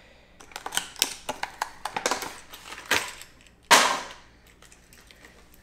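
Plastic lure packaging being handled and pried open: a run of sharp clicks and crackles, then a louder rasping burst of plastic about four seconds in.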